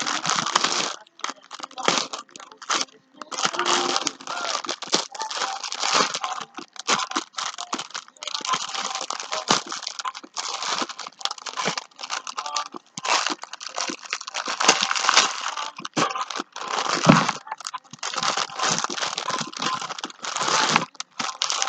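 Plastic wrapping around a long sub sandwich crinkling and crackling in irregular bursts as it is pulled and picked at by hand. The taped-shut wrap is being worked loose.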